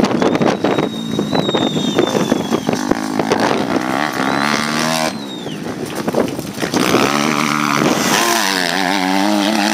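Motocross dirt bike engines revving as riders accelerate and back off over the track. The engine note comes through clearer in the last few seconds, its pitch rising and falling.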